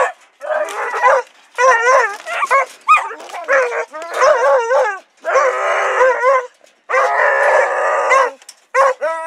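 Several beagle-type rabbit hounds barking and baying in quick short bursts, at times over one another, with two longer drawn-out bays in the second half.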